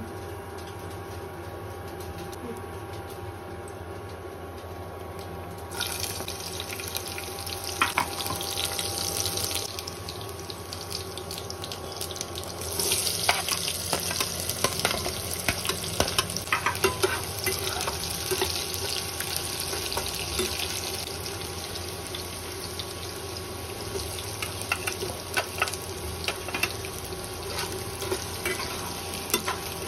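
Chopped onions and green chillies, then potato cubes, sizzling in hot oil in a kadai. The sizzling hiss starts about six seconds in and grows louder from about thirteen seconds, with clicks and scrapes of a metal spatula stirring. A steady hum runs underneath.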